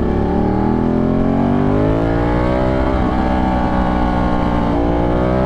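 Ducati 1199 Panigale's 1198 cc Superquadro V-twin engine pulling hard under acceleration. Its pitch rises through the gears, with a quick upshift about three seconds in and another near the end.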